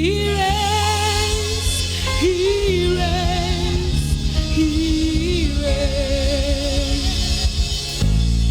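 Gospel praise-and-worship music: one voice singing long, wavering notes that slide into pitch, over sustained instrumental chords and bass.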